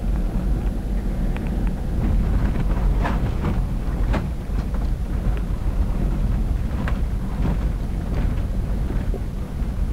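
Land Rover Defender driving slowly along a rough dirt track, heard from inside the cab: a steady low rumble of engine and drivetrain, with knocks and rattles as the body jolts over the ruts, most of them about three to four seconds in and again around seven seconds.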